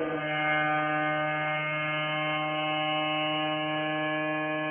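Ship's horn of the ferry MV Mayne Queen giving one long, steady blast on a single low pitch. The blast starts just before this stretch and is still going when it ends.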